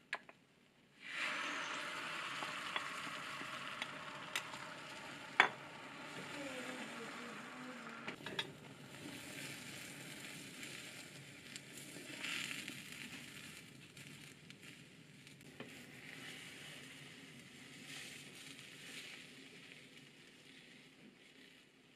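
Beaten egg sizzling in a hot, oiled square tamagoyaki pan. The sizzle starts suddenly about a second in, as a new layer goes into the pan, and slowly fades. A few sharp clicks sound over it, the loudest about five seconds in.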